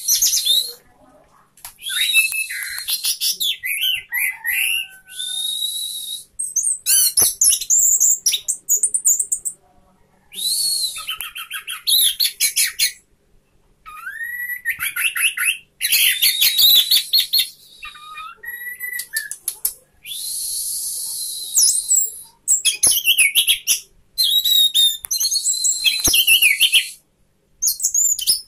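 Orange-headed thrush singing a varied song in phrases of one to three seconds with short pauses between them. The phrases mix clear rising and falling whistles, rapid trills and harsh, hissy high notes.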